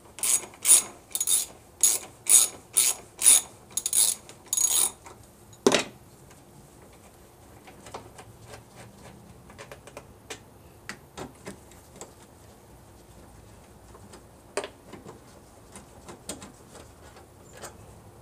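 Socket ratchet clicking on its back-swings, about two strokes a second for the first five seconds, as it loosens a 10 mm bolt. A single sharp knock follows, then faint scattered clicks and taps.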